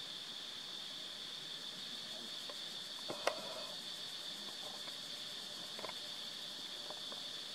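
Steady high-pitched drone of insects, with one sharp click about three seconds in and a few faint soft sounds.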